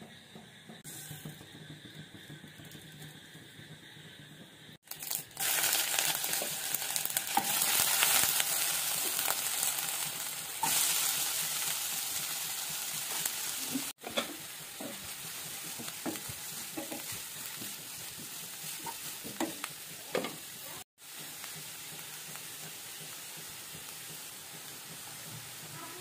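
Sliced onions and green chillies sizzling in hot oil in a non-stick wok, starting after a quieter stretch about five seconds in and loudest for the next several seconds, then easing to a steadier, softer sizzle. Short knocks from stirring come now and then in the later part.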